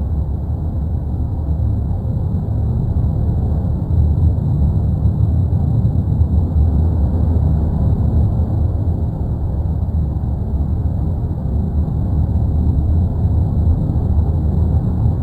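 Deep, continuous rumble of the erupting Cumbre Vieja volcano, loud and steady with small swells in level.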